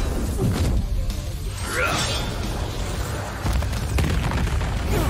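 Animated fight sound effects: an explosion blast with whooshing sweeps over a constant deep rumble.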